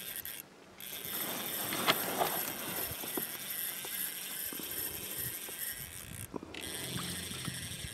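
Spinning fishing reel being cranked while a fish is played, heard as scattered small clicks over a steady outdoor hiss, with one sharp knock about two seconds in.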